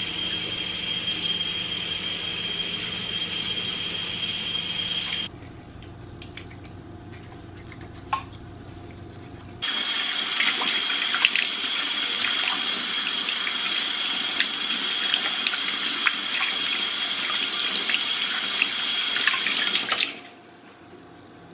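Kitchen tap running into a stainless steel sink while hands are washed under it, a steady rush of water with a thin high whistle in it. The flow drops away for about four seconds early on, runs again, and cuts off suddenly near the end.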